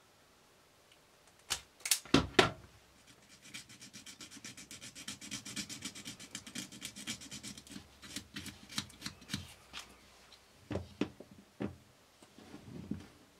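Wire strippers snapping on a cable core, a few sharp clicks, followed by several seconds of fast, even scratchy rubbing as fingers twist the bared copper strands. A few more clicks come near the end.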